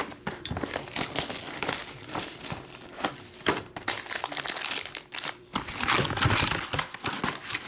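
Trading-card pack wrapper crinkling and rustling, with cards being handled: an irregular run of crackles and sharp little clicks.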